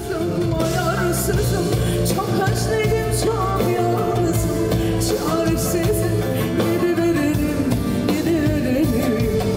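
A woman singing live into a microphone over a full band, her voice carrying long wavering notes above a steady bass and drums.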